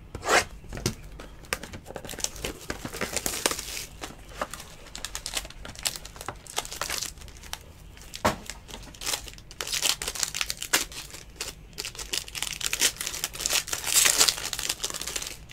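Foil wrapper of a trading-card pack crinkling and tearing as it is worked open by hand, a busy run of sharp crackles that comes in louder bursts, loudest near the end.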